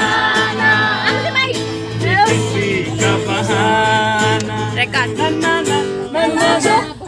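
A man singing loudly to a strummed acoustic guitar, with others singing along.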